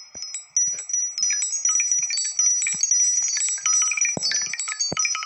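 Mobile phone ringtone: a quick run of high, tinkling chime-like notes that cuts off suddenly near the end.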